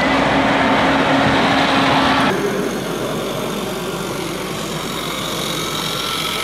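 Radio-controlled scale models running: the Liebherr crawler dozer model with a steady hum over a noisy whirr, then, changing abruptly about two seconds in, a quieter engine-like running sound from the Steiger Panther four-wheel-drive tractor model driving over soil.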